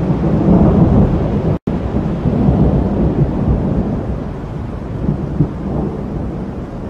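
Rolling thunder rumbling, loudest in the first second and a half. It cuts out for an instant, then rumbles on and slowly fades.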